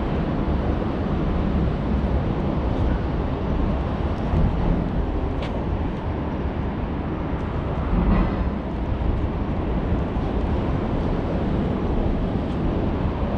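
Steady low rumble of outdoor background noise, with a single short click about five and a half seconds in.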